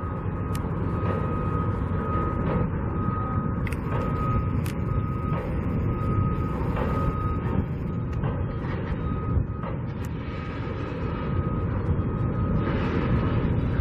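Reversing alarm on a construction vehicle, a long run of evenly spaced beeps, over the low rumble of heavy machinery.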